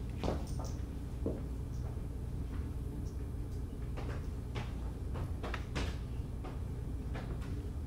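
Steady low hum of a quiet theatre hall, with a few faint knocks and creaks from actors moving on the wooden stage.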